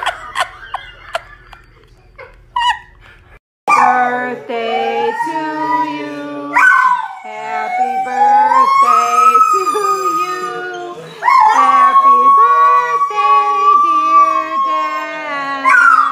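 A pit bull-type dog howling in long wavering notes that glide up and down, starting about three and a half seconds in. Before it there are a few short clicks.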